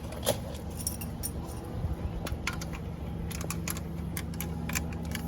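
Scattered small metal clicks and clinks of a wrench working the lower adjuster nut of a motorcycle clutch cable, over a steady low hum.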